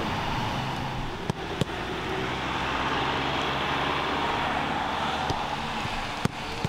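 Footballs being kicked on a grass training pitch: a few sharp thuds, two close together about a second and a half in and two more near the end, over a steady outdoor background noise.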